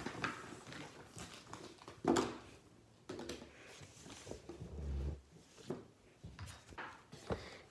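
Scattered knocks, clicks and rustles of objects being picked up and moved about on a hard countertop, with a louder knock about two seconds in and a dull thud near five seconds.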